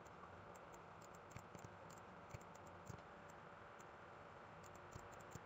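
Near silence with faint, scattered clicks of a computer mouse as points are picked and the view is turned, plus a few soft knocks.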